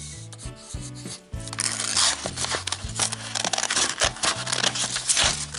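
Scissors cutting through a sheet of paper, a run of crisp snips and paper rustle starting about a second and a half in and stopping near the end, over background music.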